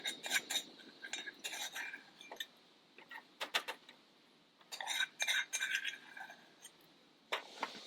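Metal cutlery clinking and tapping against a dish during a meal, in several short clusters of sharp clicks.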